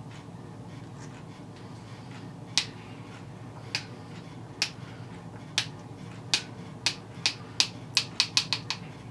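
A parrot making a string of about a dozen sharp clicks that come faster and faster toward the end, over the steady low hum of a fan.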